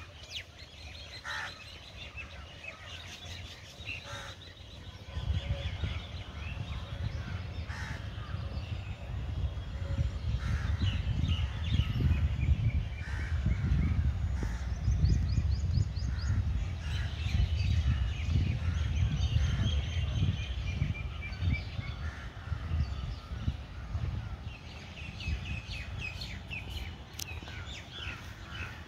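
Birds calling and chirping, many short overlapping calls throughout. From about five seconds in, a deep, uneven rumble rises under them, loudest in the middle, and fades near the end.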